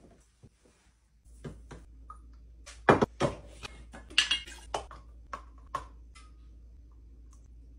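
Clinks and knocks of plastic baby bottles, lids and a milk pitcher being handled and set down on a kitchen counter, a dozen or so, the loudest about three seconds in, some with a short ring. A low steady hum lies underneath.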